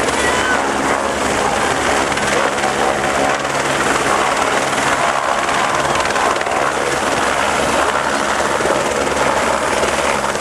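Helicopter's rotor and turbine engine running steadily and loudly.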